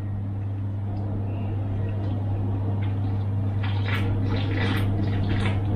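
Beer gulped straight from cans: a run of quick swallowing gulps beginning about halfway through, over a steady low hum.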